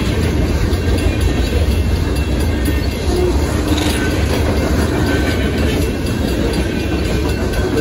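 Freight train cars, lumber-loaded centerbeam flatcars, rolling past a grade crossing: a steady low rumble with the clickety-clack of wheels over the rails.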